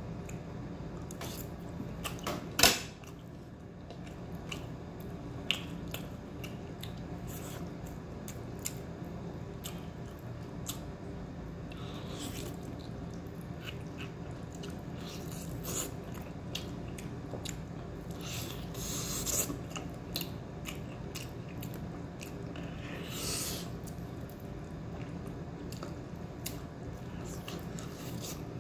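A person chewing and biting food, with many small wet clicks and the odd clink of a utensil, one louder knock about two and a half seconds in, over a steady low hum.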